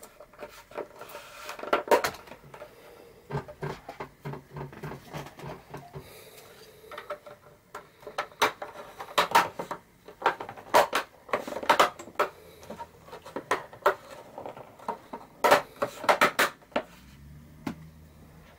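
Irregular clicks, taps and knocks of a plastic ring light and its stand being handled and adjusted by hand, with a cluster of louder knocks near the end.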